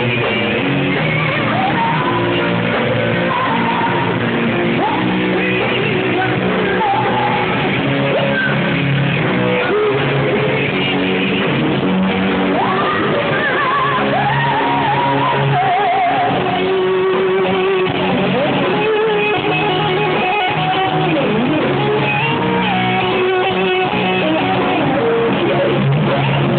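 Live band playing a slow rock ballad, with an electric guitar, a Fender Stratocaster, carrying bending melodic lines over the band.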